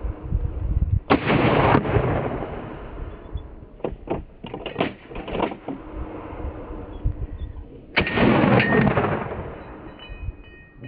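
Two loud gunshots about seven seconds apart, each rolling on for nearly a second as it echoes. In between comes a quick cluster of fainter cracks. The shots are fired at a running wild boar and kick up dust on the slope around it.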